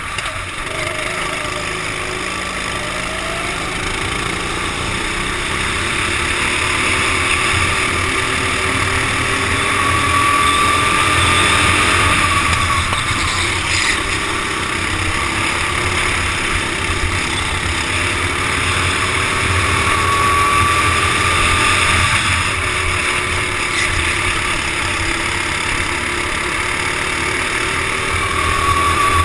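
Racing kart engines running hard, heard from the driver's helmet, the engine note rising in pitch three times as the kart accelerates, with other karts running close by.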